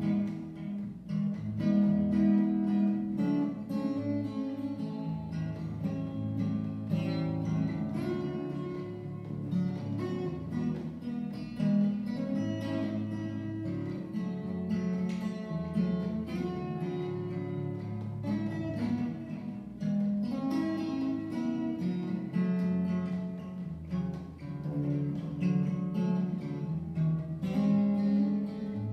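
Steel-string acoustic guitar played solo and fingerstyle: picked melody notes over a bass line, in a steady rhythm.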